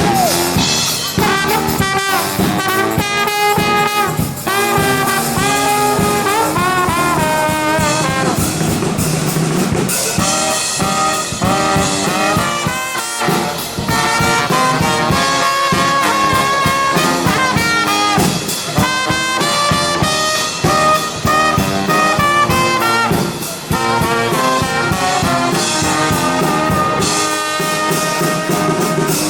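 Brass band playing an instrumental passage, horns carrying the melody over a steady drum beat.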